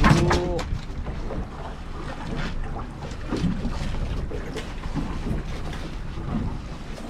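Wind buffeting the microphone over the sound of the sea and the small boat: a steady rushing noise with a low rumble.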